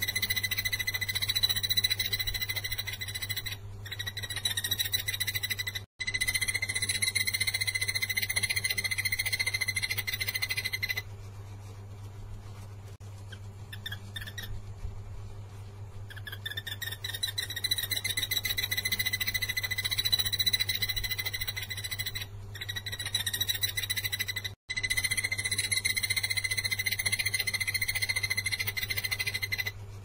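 Caged takur tenggeret barbet singing: a rapid, high-pitched trill held in long unbroken bouts, stopping for a few seconds in the middle. A steady low hum runs underneath.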